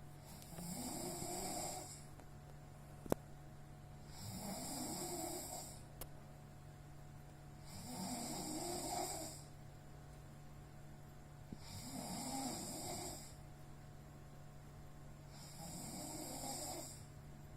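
A sleeping person snoring, five snores about every four seconds, each lasting about a second and a half. A steady low hum runs underneath, and a single sharp click comes about three seconds in.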